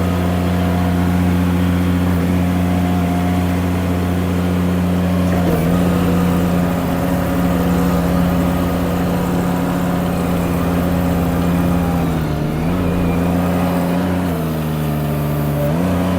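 Mini skid steer engine running at a steady high throttle, its pitch sagging briefly and recovering several times: about five seconds in, around twelve seconds, and again near the end.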